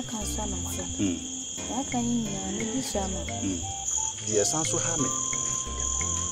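Crickets chirping steadily in a night-time chorus, with a person's voice over it.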